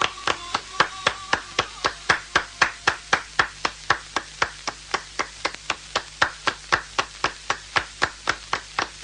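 Audience clapping in unison to a steady beat, about four claps a second.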